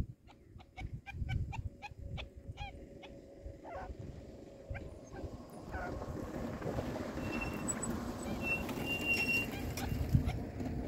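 Chukar partridge calling: a quick run of short clucking notes, two or three a second, through the first four seconds, then a few scattered ones. A low rumbling noise builds from about halfway.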